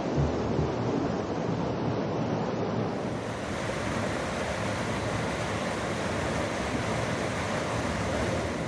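Small creek waterfall and rapid rushing steadily.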